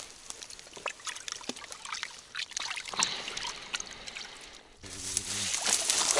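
Light rustling and scattered clicks at the water's edge. Then, from about five seconds in, louder water splashing and sloshing as a hooked tench thrashes at the surface close to the bank.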